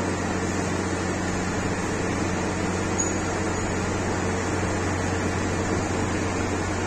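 Shrink-wrap heat tunnel running: its blower and motors make a steady hum with a rush of air.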